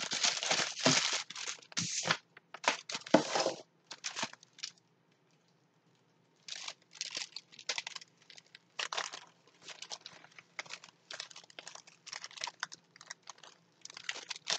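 Plastic packaging bag crinkling and rustling as it is handled and pulled open, loudest in the first few seconds, with a short pause about five seconds in, then softer, scattered crinkles.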